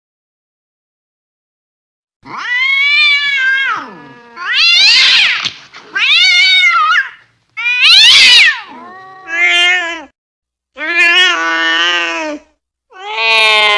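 Angry cat caterwauling: after about two seconds of silence, a string of about seven drawn-out yowls, each rising and then falling in pitch.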